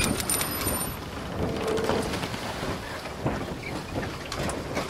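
Logo-intro sound effect: an even, rain-like hiss with scattered faint clicks.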